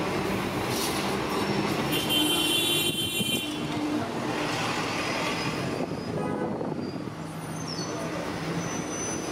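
A vehicle running, with continuous rumbling noise and a brief high squeal about two seconds in.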